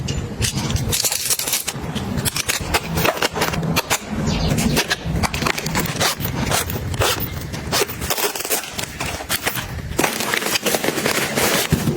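Packaged groceries and snacks being handled and set in place: a rapid, irregular run of clicks, taps and knocks with crinkling and scraping of packaging.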